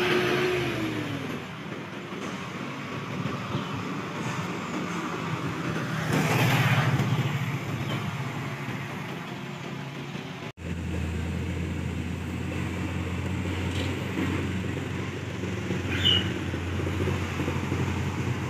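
Container truck engines running as the trucks pass on the road, with a louder stretch about six seconds in. About ten seconds in the sound cuts off abruptly and is replaced by a steadier low engine drone.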